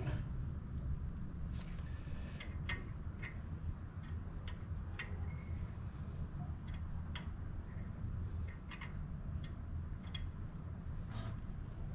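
Scattered light clicks and taps at irregular moments over a steady low hum: hand and tool handling at a front brake caliper during a brake bleed.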